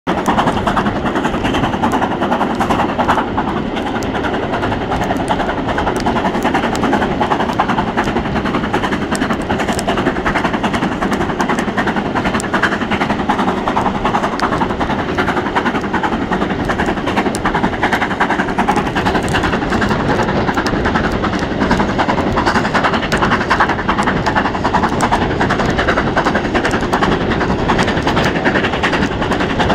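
BR Standard Class 7 'Britannia' steam locomotive 70013 working hard with a train, its exhaust beats heard from an open carriage window with wind rushing over the microphone. Scattered sharp clicks are char thrown from the smokebox striking the camera.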